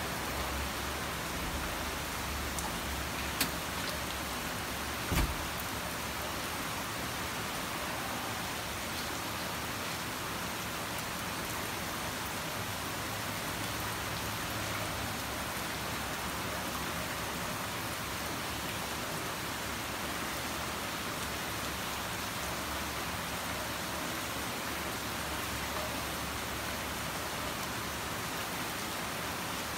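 Steady, even background hiss, with two short knocks about three and five seconds in.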